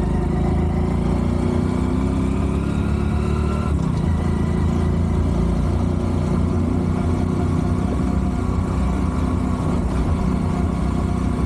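Small motorcycle engine running steadily under way, with wind rushing over the microphone.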